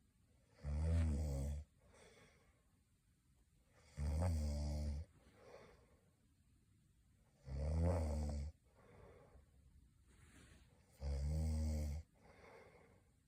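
A person snoring in sleep: four loud, low snores, each about a second long and coming roughly every three and a half seconds, with quieter breathing between them.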